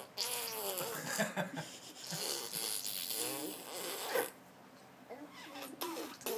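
A baby blowing raspberries, making farting noises with his lips and voice: one long blow lasting about four seconds, then a few shorter ones near the end.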